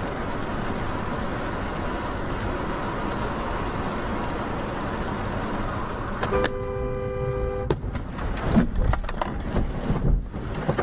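Steady road and tyre noise from a car driving on a wet highway, then a car horn blares for about a second and a half, roughly six seconds in. After it comes a series of irregular knocks and thumps as the car's view swings out of control.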